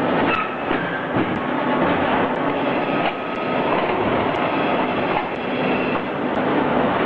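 Automatic concrete block production line running: a steady, dense mechanical clatter with a few sharp metal knocks, as the pallet stacker handles pallets of fresh blocks.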